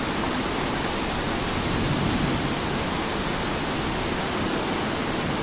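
Heavy rain falling steadily in gale-force wind, an even hiss that does not let up.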